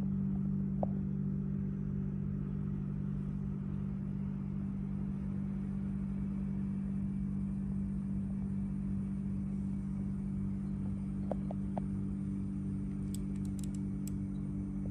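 A steady engine-like hum with a low, evenly pulsing rumble underneath, with a few short clicks about a second in and again near the end.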